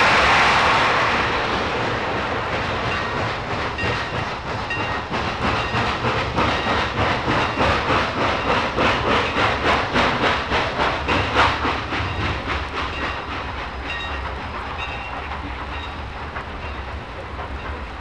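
Steam-hauled freight train of a Norfolk & Western Y6 compound locomotive passing. A loud rushing hiss at the start dies down, then a rhythmic clatter at about two to three beats a second swells and fades as the train rolls by.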